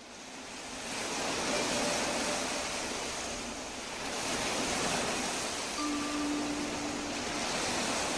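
Ocean surf sound, a steady wash of noise that fades in at the start and rises and falls in slow swells. A soft ringing tone sounds briefly about six seconds in.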